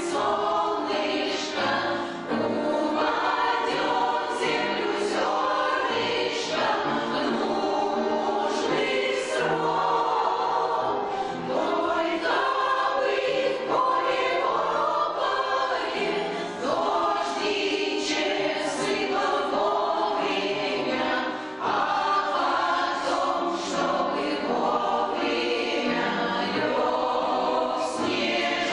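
Choir singing a song, many voices together, carrying on without a break.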